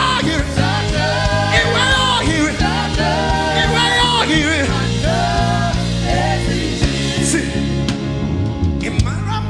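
Worship music: a voice singing long, wavering notes over a steady sustained accompaniment.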